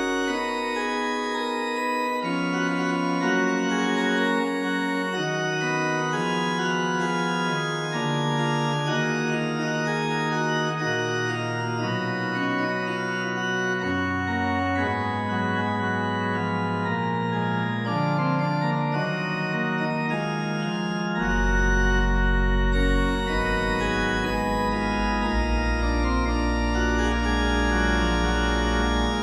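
Slow, sustained organ chords, one held chord moving into the next every second or two. A deep bass note comes in about two-thirds of the way through and holds under the chords.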